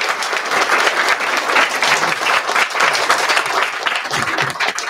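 Audience applause, many people clapping steadily, tapering off near the end.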